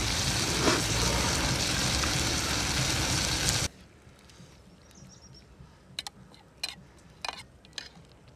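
A steady rushing hiss cuts off suddenly a few seconds in. Then it is quiet except for a few light clicks and scrapes of a metal spatula against an iron wok as frying dry meat (sukuti) is stirred.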